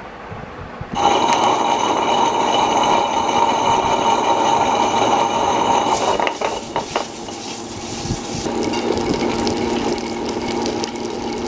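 A new tabletop wet grinder switched on about a second in, its motor running with a steady whine as the stone rollers grind raw rice in the turning drum: the first grind that flushes grit and stone dust out of new grinding stones. A little past halfway the higher part of the sound drops away and a lower steady hum carries on.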